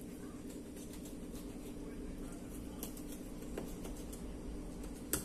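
A sharp knife cutting a fillet off a snook along the backbone: faint scraping and small clicks as the blade works through flesh and bone, with one sharp click near the end, over a steady low hum.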